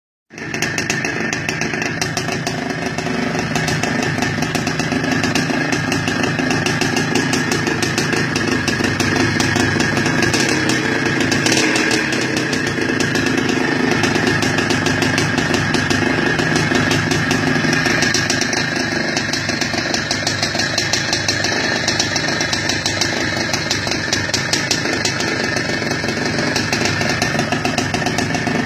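A Carabela 200 cc motorcycle engine running steadily, with small swells in speed.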